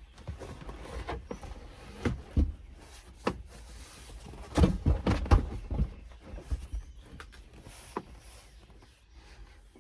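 Irregular knocks and thumps from parts being handled and set in place inside a pickup's cab, with a heavier cluster about two seconds in and another around five seconds in.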